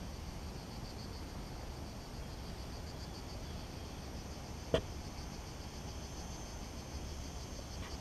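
Open-air ambience: a low steady rumble with faint rapid insect chirping, and a single sharp click about halfway through.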